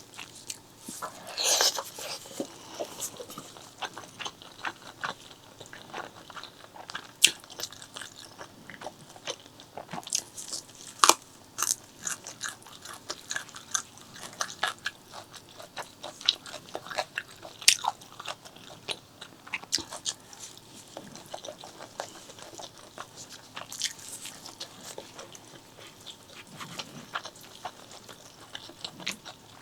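Close-miked mouth sounds of eating pork leg curry with rice: chewing and biting, with dense irregular wet clicks and smacks and a few louder sharp snaps.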